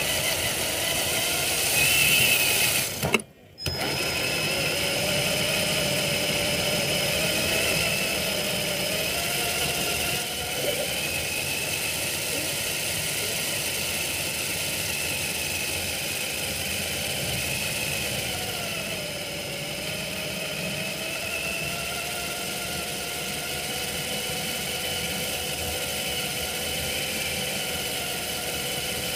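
Traxxas TRX-4 RC crawler's electric motor and geared drivetrain whining as it drives, the pitch slowly rising and falling with speed, over tyre and wind noise at the onboard microphone. The sound drops out for a moment about three seconds in.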